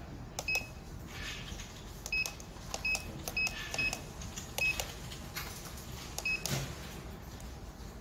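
Electronic safe-lock keypad beeping once for each key press as a code is entered: seven short, high beeps, each starting with the click of the button, at uneven intervals.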